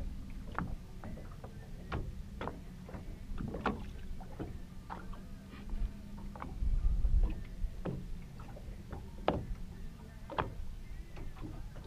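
Small waves slapping against a boat hull in irregular short knocks, over a faint steady low hum, with a brief low rumble about seven seconds in.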